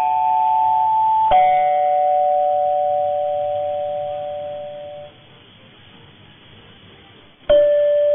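Chime tones of a radio station's signal heard over medium-wave AM through a tuner, dull and band-limited. Pairs of bell-like notes sound together: one chime at the start, another about a second in that rings out and fades away over some four seconds. A stretch of faint hiss follows, then another chime strikes near the end.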